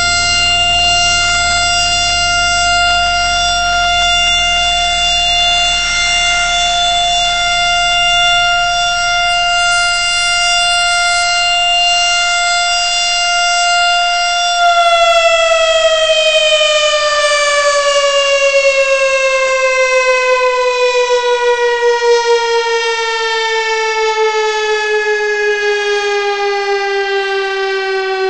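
ACA P-15 warning siren sounding a steady tone for about fifteen seconds, then slowly falling in pitch as it winds down.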